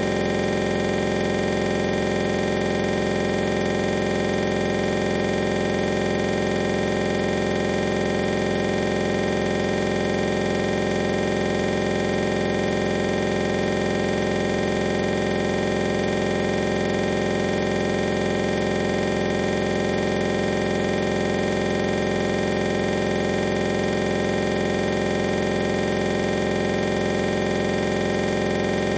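Steady, unchanging electronic drone: many held tones over a hiss, with no rhythm, breaks or change in loudness.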